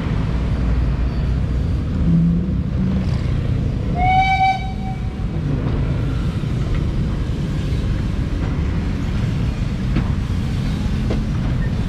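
Steam locomotive and its coaches rolling slowly past with a steady low rumble of wheels on the rails. Its steam whistle gives one short toot about four seconds in.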